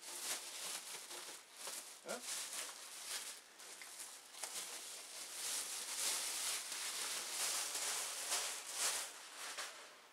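Clear plastic bag crinkling and rustling in irregular bursts as it is pulled off a computer case, with a short squeak about two seconds in.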